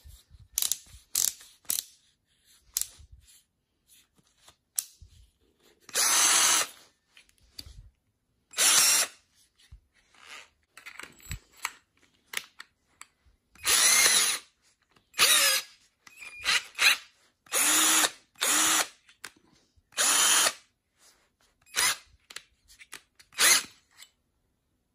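21 V cordless drill/driver motor running in short trigger bursts of about a second each, with clicks and handling noises between as the keyless chuck is worked by hand.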